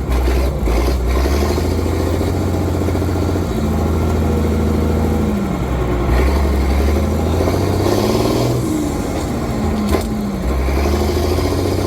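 M35A2 Deuce and a Half's multifuel inline-six diesel engine running while the truck drives, its engine speed dropping and climbing again several times. A single sharp click about ten seconds in.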